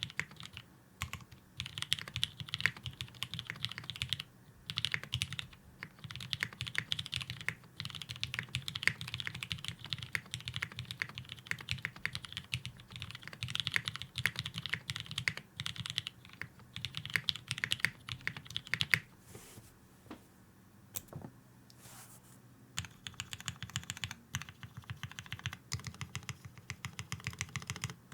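Typing on a Gok 7v custom mechanical keyboard with lubed retooled Cherry MX Black linear switches on an FR4 half plate and GMK keycaps: fast runs of key presses, thinning to a few scattered keystrokes about twenty seconds in before quick typing resumes.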